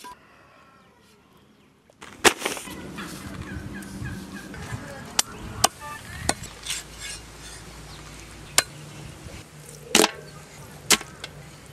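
Heavy knife chopping raw stingray on a wooden chopping block: about seven sharp single strikes at uneven intervals, starting about two seconds in.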